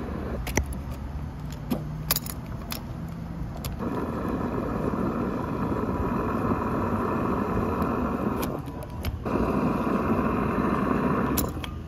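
Gas pump nozzle clicking a few times as it is handled, then fuel flowing through the nozzle into a car's tank with a steady rushing hiss from about four seconds in. The flow breaks off briefly near nine seconds, resumes, and stops shortly before the end.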